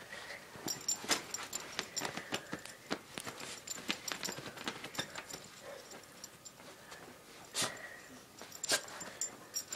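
A dog pawing and digging at a pillow to get at a squeaky toy hidden beneath it: a run of irregular scratches and scuffs.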